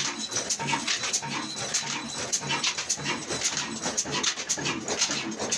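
Old Ruston-type stationary diesel engine running steadily: a low exhaust beat about twice a second under a fast, clattering run of mechanical ticks.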